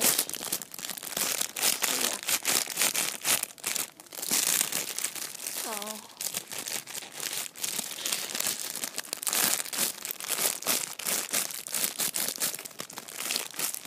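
Clear plastic packaging crinkling and crackling irregularly as a sealed squishy toy is handled and squeezed inside its bag.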